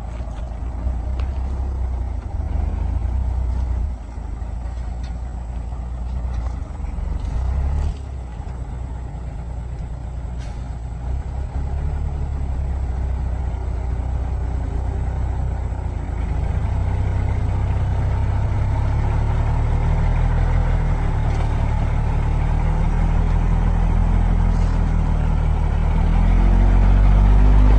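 Heavy diesel engine of logging machinery working under load in mud. It grows louder from about halfway through and revs up near the end, its pitch rising. A few light knocks can be heard in the first half.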